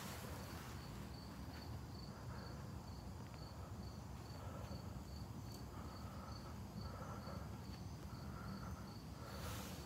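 A cricket chirping steadily, about two and a half chirps a second, over a low hum. A few faint crackles come from the burning wood fire.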